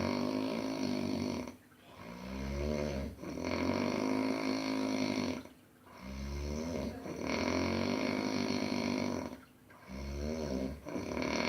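Baby snoring in slow, regular breaths, three of them about four seconds apart, each a short wavering snore followed by a longer noisy breath, with brief pauses between. The snoring is what the mother fears may point to enlarged adenoids.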